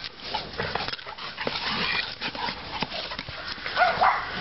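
Two dogs, one a boerboel, play-wrestling. Scuffling and short dog sounds run throughout, with a brief high rising whine near the end.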